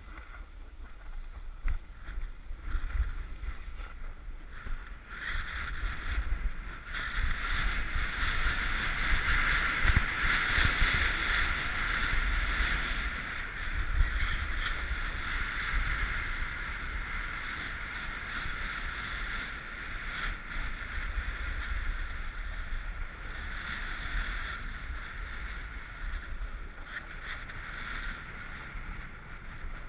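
A snowboard sliding and carving down packed snow: a continuous scraping hiss of the base and edges over the snow, loudest partway through the run, with wind buffeting the helmet camera's microphone.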